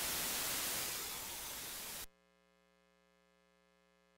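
Scanner radio static between transmissions: a steady hiss that fades slightly, then cuts off suddenly about two seconds in as the squelch closes.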